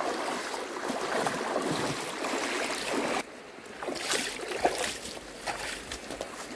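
Feet splashing and wading through a shallow, running stream for about three seconds, then after a sudden cut, footsteps and leaves rustling as people push through tall grass.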